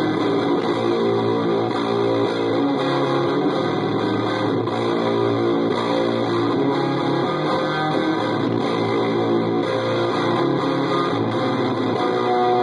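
Electric guitar played through a breadboarded dropout fuzz pedal with its booster off, into an amplifier's low channel, giving a distorted tone. The player strums chords and lets a chord ring out near the end.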